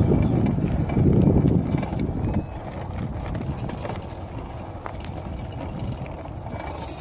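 Fat-tyre bicycle rolling along a rough road, its tyres rumbling, with wind buffeting the microphone; the buffeting is heavier for the first two seconds or so, then settles into a steadier, quieter rush.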